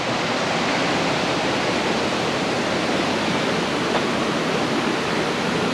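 Steady rush of water from a cascading creek and falls.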